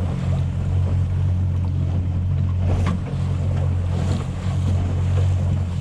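Boat motor running steadily at slow trolling speed, a constant low drone, with a hiss of wind and water over it.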